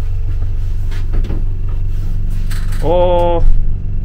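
Steady low mechanical hum of machinery running, with a short hiss about two and a half seconds in.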